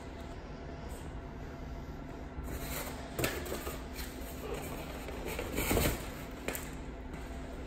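Styrofoam corner protectors being pulled out of a large cardboard shipping box and set down: a few scattered scraping and knocking handling sounds, the loudest about six seconds in, over a steady low hum.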